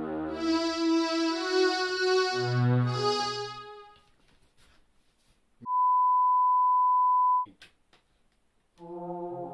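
Korg DW-8000 synthesizer playing sustained chords rich in overtones over low bass notes, fading out about four seconds in. After a short pause a single steady pure tone sounds for about two seconds, and chords start again near the end.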